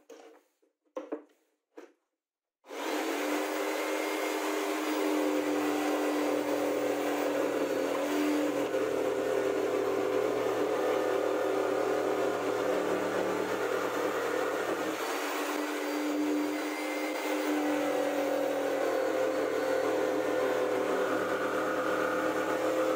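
A table-mounted woodworking power tool's electric motor switches on a few seconds in and runs steadily with a whine as a plywood strip is fed through it to cut a slot. A few light knocks come just before it starts.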